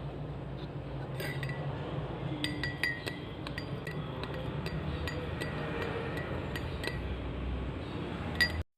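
Glass clinking again and again, each clink ringing at the same pitch, over a steady low hum. One clink comes about a second in, then they come thick from about two and a half to seven seconds.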